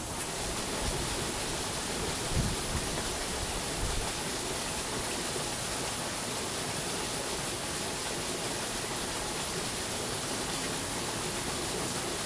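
A steady, even rushing noise, with a faint steady high tone over it and a couple of low thumps about two and a half and four seconds in.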